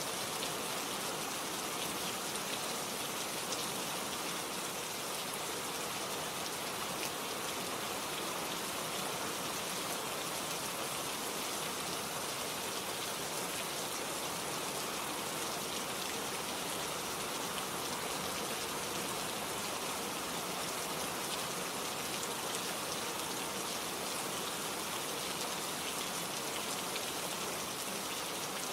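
Steady rain falling, a dense even hiss of drops pattering on surfaces.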